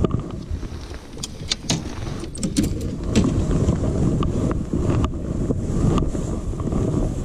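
Wind rumbling and buffeting on the microphone, with a scatter of small sharp clicks and ticks, most of them between about one and three seconds in.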